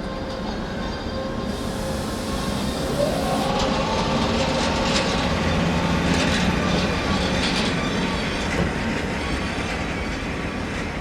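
A train running through a station, its wheels clattering over the rails with bursts of high-pitched wheel squeal. A whining tone rises in pitch about three seconds in and then holds. The sound is loudest mid-way.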